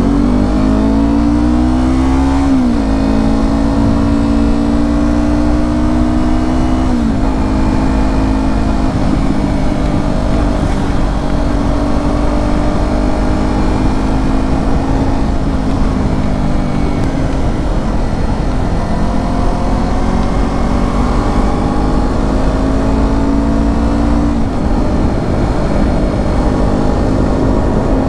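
Yamaha R25's 250 cc parallel-twin engine running through a Proliner TR1R slip-on exhaust, accelerating under way. The engine pitch climbs in each gear and drops sharply at four upshifts spread through the stretch.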